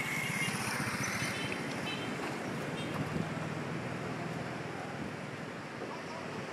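Steady seaside ambience: wind buffeting the microphone over a wash of surf, with faint distant voices in the first couple of seconds.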